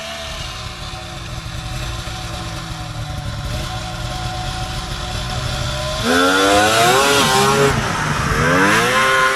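Two-stroke snowmobile engines running steadily, then about six seconds in the revs climb and fall in several surges as the sleds accelerate, in a test for a bog under throttle.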